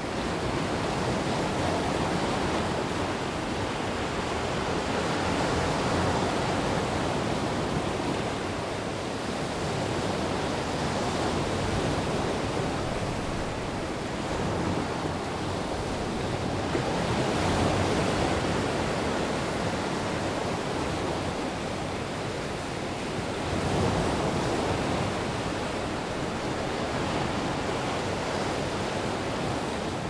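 Mediterranean surf: small waves breaking and washing over a rounded-cobble beach, a continuous hiss of water that swells and eases every five or six seconds.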